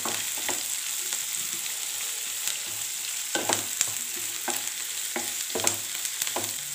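Onions, green chillies and ginger sizzling in coconut oil in a kadai on a low flame, with a spatula scraping the pan several times as they are stirred.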